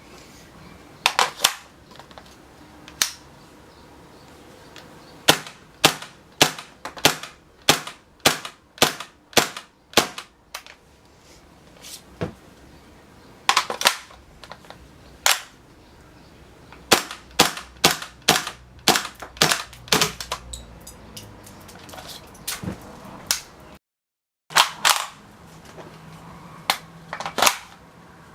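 KWA Kriss Vector gas-blowback airsoft gun firing sharp single shots, one at a time, in irregular strings: slow runs of about two shots a second and some quicker groups, with pauses of a few seconds between strings.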